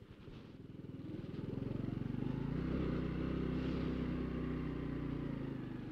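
Honda Cross Cub's single-cylinder four-stroke engine, heard from the bike. It pulses slowly at low speed at first, then from about a second and a half in settles into a steadier, louder engine note as it pulls along the gravel track.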